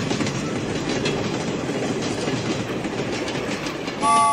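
Train sound effect: a train running on rails with the steady clickety-clack of its wheels, and a horn chord starting near the end.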